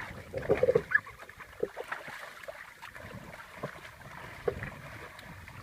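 Water sloshing and splashing, with a cluster of louder splashes about half a second in and scattered light knocks after.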